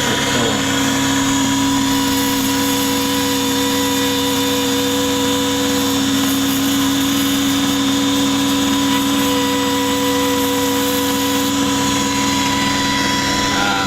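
A small 100-watt motor of a micro woodworking machine running steadily with no load, giving an even whine that does not change in pitch.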